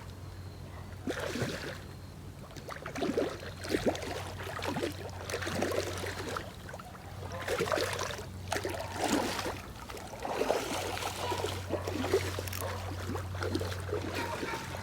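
Creek water splashing and running, in irregular surges over a steady low hum.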